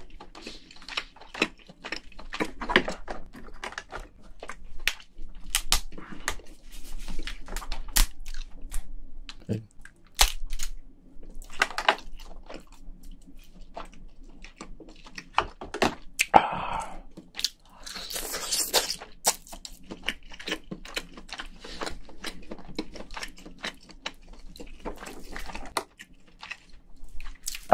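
Close-up eating sounds: chewing cooked crayfish meat and cracking and pulling apart its shell by hand, with many sharp cracks and clicks. Longer, louder crunching bursts come about 16 and 18 seconds in.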